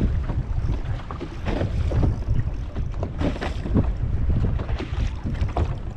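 Boat on open water with wind buffeting the microphone: a continuous, uneven low rumble with irregular gusts and splashes.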